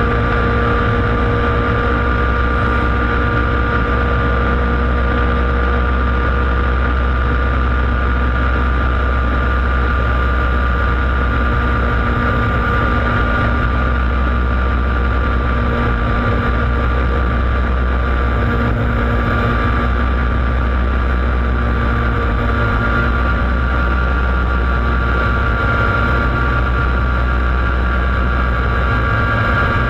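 Laydown enduro racing kart's engine heard on board, running flat out at a steady high speed, its pitch holding constant with no lifts or shifts, over a heavy low rumble.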